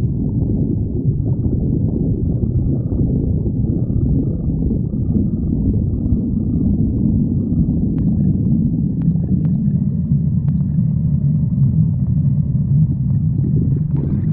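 Stomach growling: a continuous low rumble, with a few faint clicks a little past the middle.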